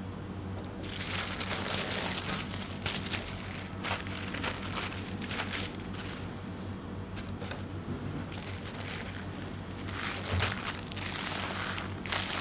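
Baking parchment paper rustling and crinkling in irregular bursts as it is lifted, peeled back and smoothed over strips of sponge biscuit, over a steady low hum.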